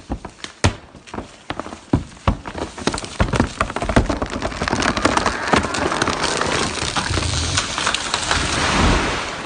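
A cut tree giving way: the wood cracks in a run of sharp snaps that come faster and faster, then a long rushing crash of branches and foliage with a low thud near the end.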